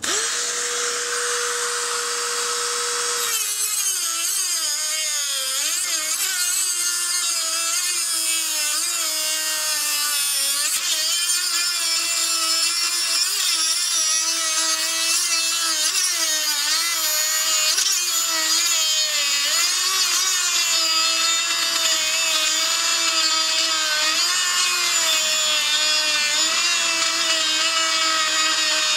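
Dremel rotary tool with a cutoff wheel: a steady whine as it spins freely for about three seconds, then it bites into a rusted steel exhaust hanger. Under load its pitch drops and wavers continually, with a grinding hiss over the whine as the wheel cuts through the metal.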